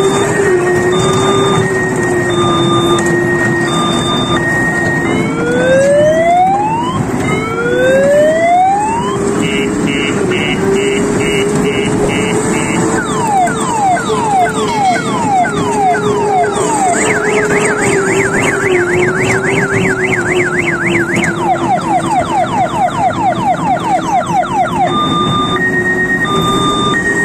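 Electronic toy siren sound effects from a children's electric ride-on train: a repeating beep pattern, then rising whoops, a run of falling sweeps and a fast warbling siren, over a steady hum.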